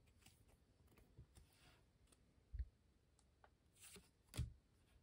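Faint handling of trading cards: scattered soft clicks and two brief low thumps, one about halfway through and one near the end, over near silence.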